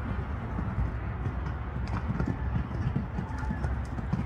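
Horse cantering on a sand arena: a steady run of dull hoofbeats.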